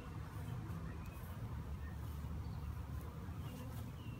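Honey bees buzzing around an opened nuc box and hive as their frames are moved, a steady low hum.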